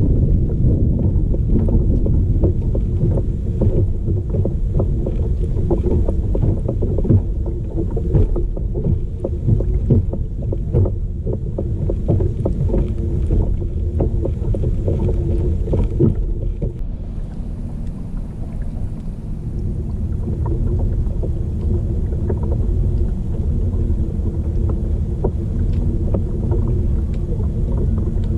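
Kayak moving across a lake, heard from a camera fixed to its hull: a steady low rumble of water along the hull with a faint steady drone and many small ticks and splashes. The higher hiss thins out after about sixteen seconds.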